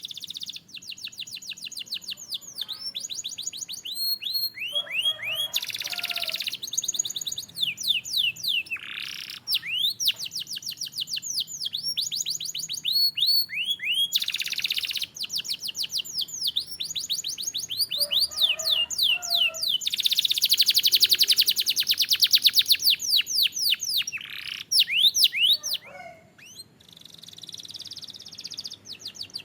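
Domestic canary singing a continuous song made of fast trills, each a quick run of repeated falling notes. A dense, rapid trill about two-thirds of the way through is the loudest part.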